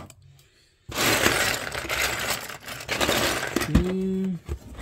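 Loose plastic Lego bricks clattering and rattling against each other as a hand digs through a pile of them in a cardboard box, starting about a second in.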